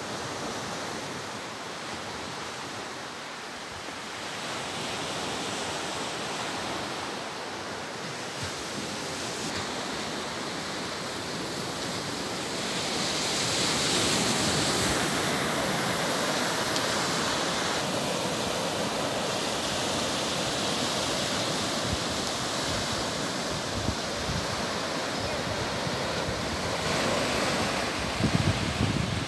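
Steady wash of ocean surf breaking on a beach, growing louder about halfway through.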